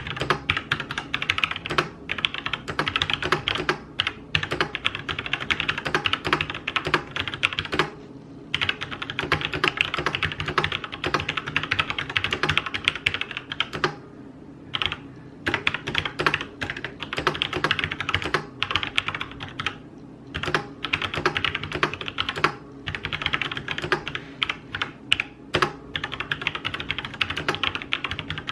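Fast typing on a Logitech G613 wireless mechanical keyboard with Romer-G switches: rapid key clacks in long runs, broken by a few short pauses.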